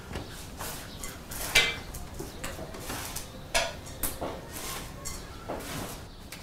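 Dishes and metal utensils clinking and clattering in a kitchen: a few sharp clinks with short ringing, the loudest about a second and a half in and again at about three and a half seconds.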